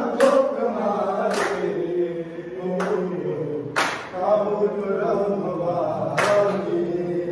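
A group of men singing a garba song together in chorus. Five sharp hand claps fall at uneven gaps of about one to two seconds.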